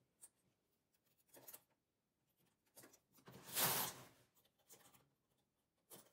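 Faint, scattered scratchy rustles from handling knitted fabric and needles on a midgauge knitting machine, with one louder, longer scrape around three and a half seconds in.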